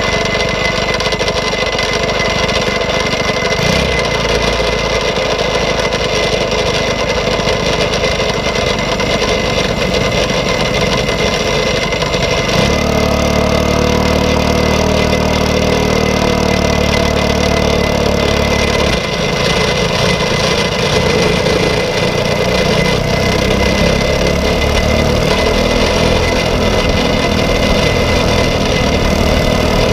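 Onboard sound of a kart's Briggs & Stratton LO206 single-cylinder four-stroke engine running as the kart is pushed off and drives out onto the track. The engine note shifts with the throttle, holding a strong steady drone from about 13 to 19 seconds in before changing again.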